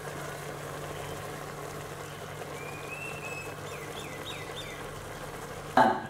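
Chicken and vegetable tomato base cooking in a pot on a gas hob, a steady sizzle. A few faint bird chirps come through in the middle, and a brief louder noise near the end.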